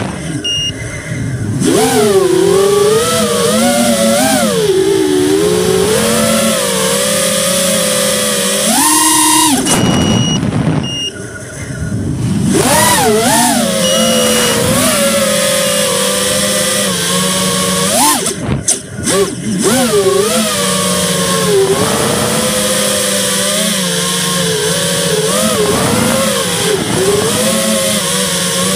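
Radio-controlled car's motor heard up close from on board, its pitch rising and falling constantly with the throttle. It drops out briefly three times: right at the start, about ten seconds in and about eighteen seconds in.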